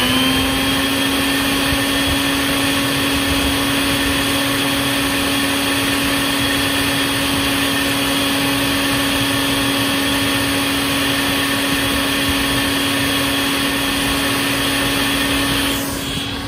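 Electric motor of a shop-vacuum-style smoke blower running steadily at full speed with an even whine, blowing smoke into a plumbing vent stack during a smoke test. It gets a little quieter near the end.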